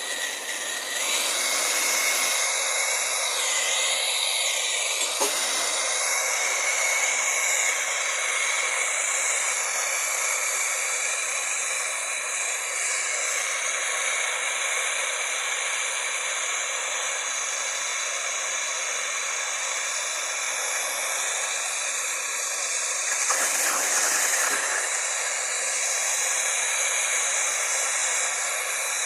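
Gas blowtorch burning with a steady hiss, heating the motor's metal so that a stuck part will come free; the flame flares briefly a few seconds before the end.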